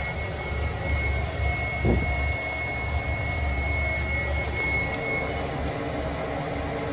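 Gas-fired boiler running: a steady low rumble, with a faint high whine that stops about five seconds in.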